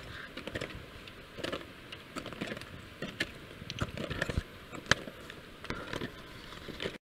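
Footsteps crunching and clicking on hard glacier ice in an uneven series, with the tap of trekking poles, cutting off suddenly near the end.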